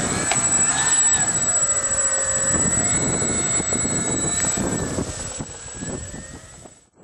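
Twin E-flite Power 25 brushless electric motors spinning APC 12x8E propellers on a model Twin Otter as it taxis, a whine whose pitch rises and falls with the throttle. The sound cuts off suddenly near the end.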